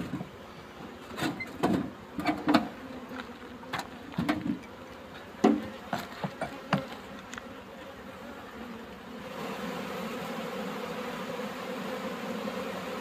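Honeybees buzzing in an opened hive, with a few sharp knocks in the first seven seconds. From about nine seconds in, the buzz grows into a steady, dense hum.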